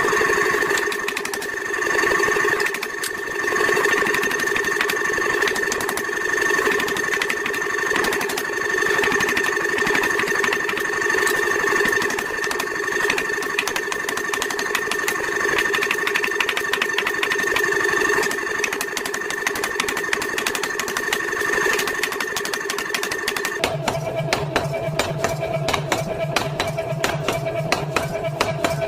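Mechanical forging hammer running and striking hot iron in rapid repeated blows. About 24 s in its sound changes to a lower, faster-pulsing drone.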